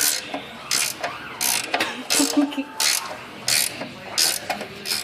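Ratchet wrench clicking as the oil drain plug is screwed back in, a short burst of ratcheting with each back-swing, about every 0.7 s.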